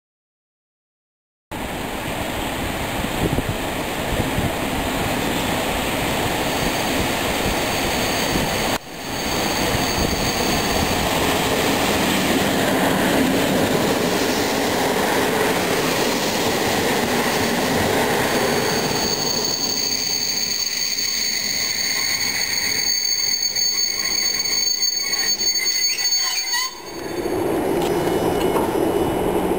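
Passenger train coaches rolling along a station platform, wheels running on the rails with a high steady squeal coming in about six seconds in and growing stronger in the second half.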